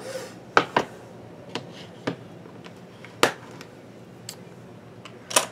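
Scattered sharp clicks and taps, about seven in all, from small makeup items such as brushes, palettes and cases being handled and set down.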